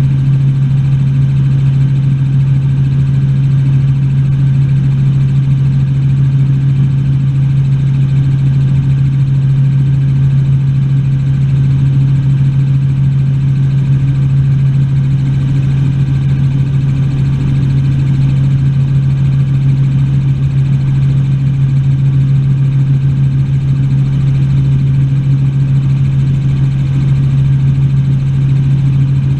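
Helicopter in flight: a loud, unchanging drone of rotor and engine with a strong steady low hum.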